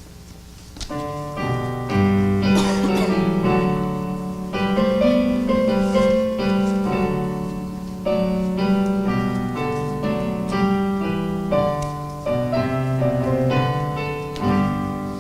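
Piano playing a hymn tune in full chords over a moving bass line, beginning about a second in, as the introduction to the announced hymn.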